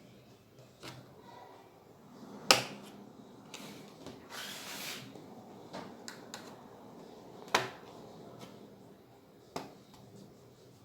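Plastic clips of a laptop's bottom case snapping loose as a plastic pry tool works along the edge: about five sharp clicks spread across the stretch, the loudest a couple of seconds in, with a brief scrape of plastic in the middle.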